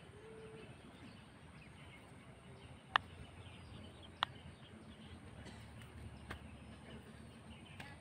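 Silicone pop-it fidget toy bubbles pressed in by a finger: two sharp pops about a second apart, then a fainter one, over a faint rural background with occasional bird chirps.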